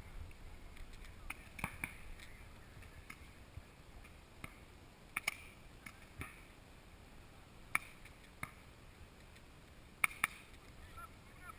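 Pump and pistol paintball markers firing single shots, sharp pops that come one at a time and irregularly, a second or several apart, with a quick pair near the end.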